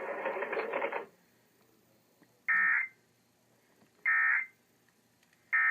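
Emergency Alert System end-of-message data bursts: three short, identical, harsh electronic warbles about a second and a half apart, marking the end of the alert. Before them, loud broadcast audio from the alert cuts off about a second in.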